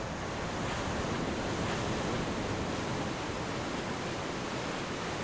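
Surf: small waves breaking and washing up on a sandy shore, a steady rush of water noise.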